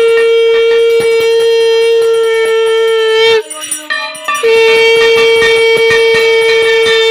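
Conch shell (shankha) blown in two long, steady blasts, with a break of about a second a little before halfway through, sounded as part of a Hindu puja. A brass hand bell rings beneath it.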